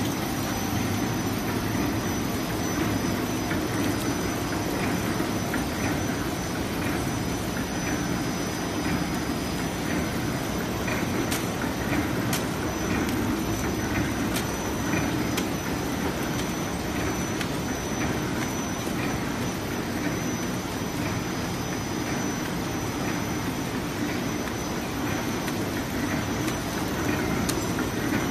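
Fully automatic chocolate bar packing line running: the steady mechanical whir and clatter of the horizontal flow-wrapping machine and its conveyors, with a few faint ticks scattered through it.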